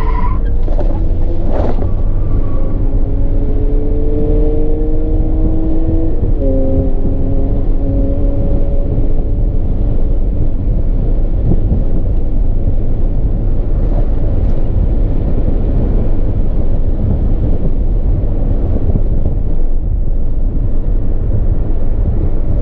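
Car engine heard from inside the car, pulling hard with its note rising, then dropping sharply at an upshift about six seconds in and climbing again. After that, heavy low road and wind roar covers most of the engine note.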